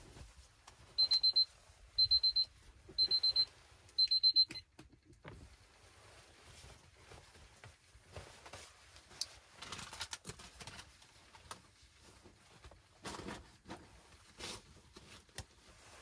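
An electronic alarm beeping: four clusters of quick, high-pitched beeps, one cluster a second, that stop after about four seconds. Afterwards come faint rustling and a few light knocks.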